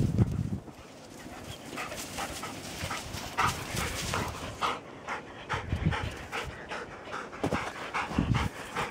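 A dog panting in quick, rhythmic breaths after running and playing in snow. A few low thumps in the first half second.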